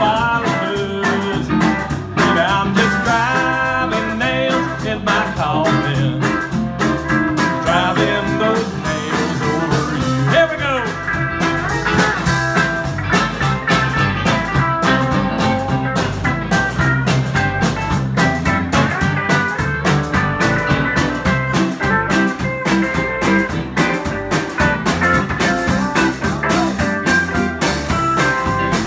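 Live honky-tonk country band playing an instrumental break: electric guitar lead with bent notes over bass and a steady drum beat.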